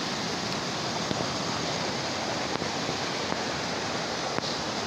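River water rushing steadily over a concrete weir spillway.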